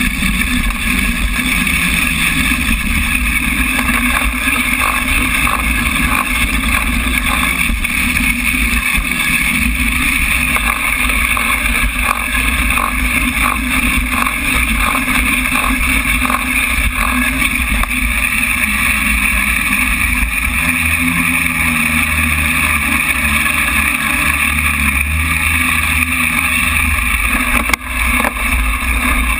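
Mountain bike riding fast down a wet dirt trail, heard from a camera mounted on the bike: steady rushing wind and tyre noise with the bike rattling over the ground, and one sharp knock near the end.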